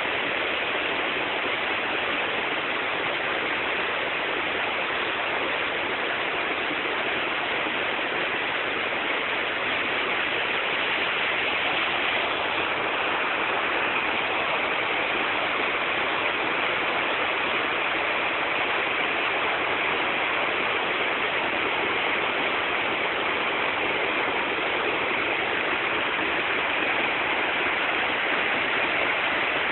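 Waterfall: a steady rush of falling water, an even hiss that runs on without breaks or changes.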